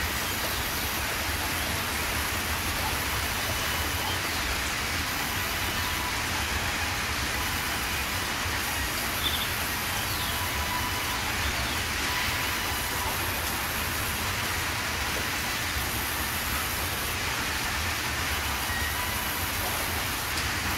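Sawmill band saw running and cutting timber, a steady machinery drone with no break, with one brief knock about nine seconds in.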